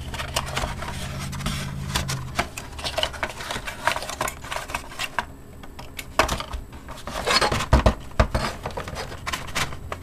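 Cardboard fan box being worked open by hand: the box and sleeve scraping and rubbing as the fan's plastic frame is pulled out, with irregular taps and knocks, the loudest cluster about three quarters through. A faint low hum sits under the first two seconds.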